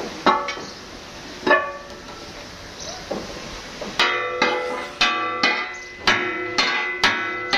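Hammer blows on a boat propeller blade as it is beaten straight, each blow ringing out like a bell. Two single strikes come near the start, then from about four seconds in a steady run of roughly two blows a second.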